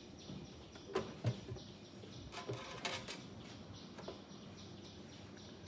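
Faint clicks and light scraping of the thin sheet-metal top cover of an Onkyo CR-445 CD receiver being handled and lifted off the chassis, with a few sharp clicks spread through.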